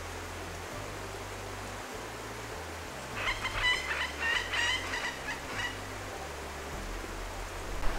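A bird calls in a quick run of short notes for about two and a half seconds, starting about three seconds in, over a steady hiss.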